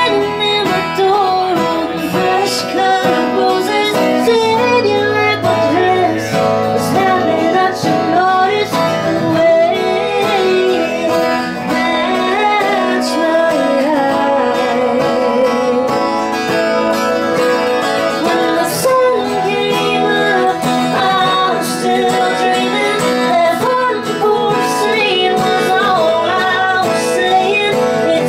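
Live acoustic country song: a woman singing lead over two strummed acoustic guitars. The music starts at the very beginning and carries on steadily throughout.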